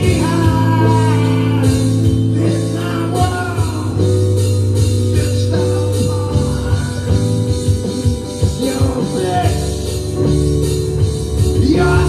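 Small rock band playing live: a man singing over guitar, keyboard and a drum kit keeping a steady beat.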